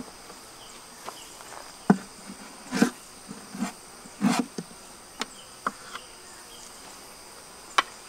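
Wooden beehive frames and box parts knocking and clunking as they are handled, about eight short sharp knocks at uneven intervals. Under them is a steady high-pitched drone of insects in two pitches.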